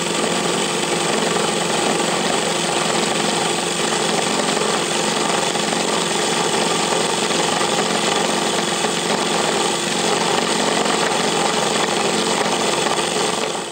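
Sherline milling machine running with an end mill taking a facing cut across the top of a cold-rolled steel block: a steady, dense cutting noise over a constant motor hum.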